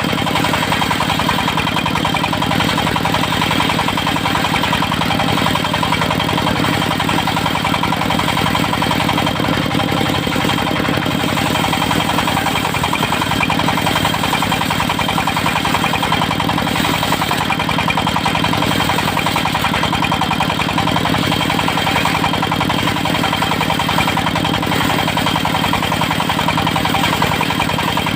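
Engine driving a portable circular sawmill, running steadily at constant speed, with a steady high whine over the engine's even beat.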